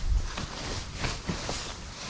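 Fabric rustling as a down sleeping bag is pulled out and handled, with a few soft knocks along the way.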